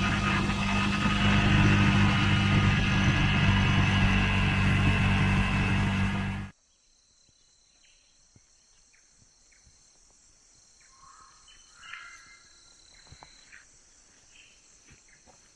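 Motorcycle engine running under way, with road noise, cutting off abruptly about six and a half seconds in. After that, a faint steady high chirring of insects with a few small clicks and short calls.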